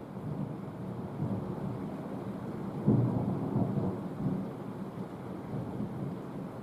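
Thunder rumbling low, with a sudden louder clap about three seconds in that rolls away over the next second or so.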